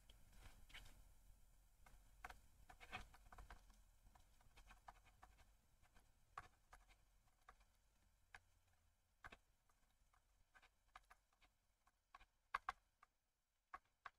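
Near silence with faint, scattered taps and clicks of a stylus on a tablet screen during handwriting, a few sharper taps near the end.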